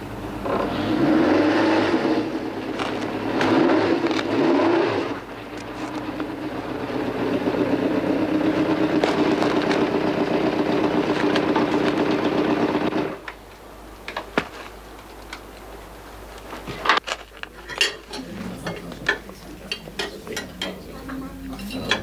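A motor vehicle running steadily for about thirteen seconds, then cutting off abruptly. Scattered clinks of dishes and cutlery follow.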